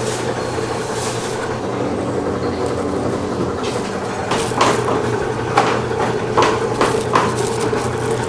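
A machine running with a steady hum. It is joined by a series of sharp clanks and clatters in the second half.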